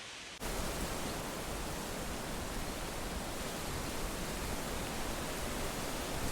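Wind and rustling leaves as a steady, even hiss. About half a second in it jumps suddenly louder and fuller, with a low rumble underneath, and then holds steady.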